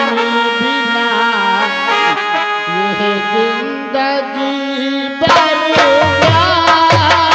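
Live stage-band music: a melody line with wavering pitch over a held drone. Drum strokes come in loudly about five seconds in.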